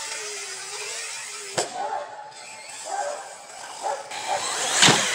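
Arrma Typhon 6S RC truggy's brushless electric motor whining, its pitch rising and falling with the throttle. A sharp knock about a second and a half in as the airborne truck lands, and a louder one near the end.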